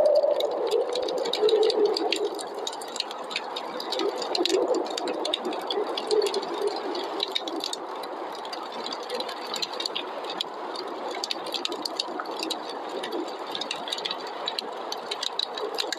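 Wood fire crackling with a dense scatter of small pops, over the rushing wind of a snowstorm that gusts louder at the start and then eases to a steadier blow.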